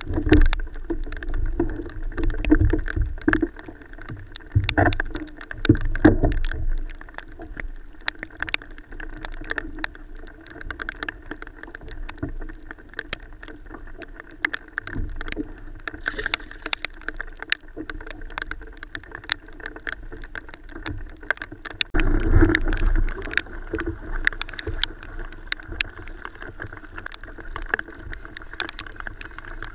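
Choppy water slapping and splashing against the hull of a fishing kayak, in irregular surges with scattered sharp ticks; the loudest slaps come near the start, about six seconds in, and again about twenty-two seconds in.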